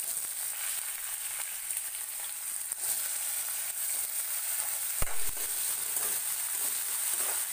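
Thin-sliced potatoes sizzling in hot ghee in a metal kadhai as they are stirred with a steel spoon, with a single sharp knock about five seconds in.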